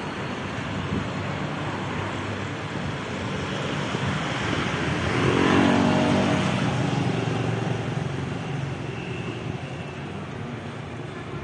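Road traffic noise heard while moving along a town street, with a vehicle engine rising to a peak about halfway through and then fading away.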